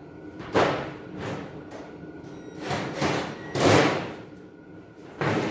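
Steel cabinet panels knocking and scraping as they are handled and fitted together: five separate clanks, the loudest and longest a little past the middle.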